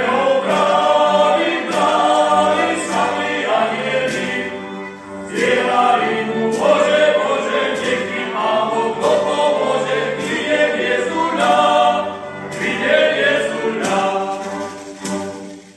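A group of carolers singing a Slovak Christmas carol together, in phrases with short pauses for breath; the song ends right at the close.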